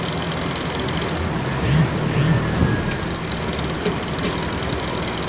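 Mitsubishi 4D30 four-cylinder diesel idling steadily, with a light tappet clatter from valves the owner says have too much clearance. Two short hisses about two seconds in.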